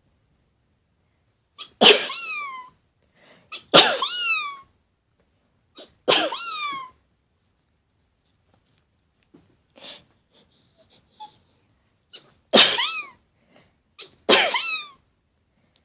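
A person with a cold sneezing in a fit, five sharp sneezes, each ending in a voiced sound that falls in pitch: three about two seconds apart, then a pause of several seconds, then two more.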